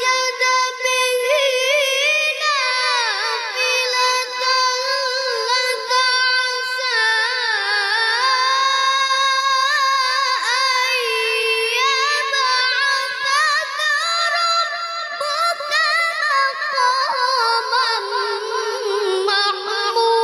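A child qari reciting the Quran in melodic tilawah style: a loud, high voice drawing out long phrases with wavering, ornamented turns of pitch, with only brief breaths between them.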